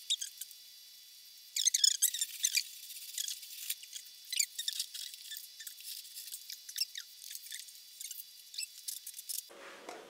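Cotton pad wet with white spirit rubbed over the inside metal walls of a microwave oven, degreasing them: runs of short squeaky, scratchy wiping strokes with brief pauses between, the longest pause about a second in.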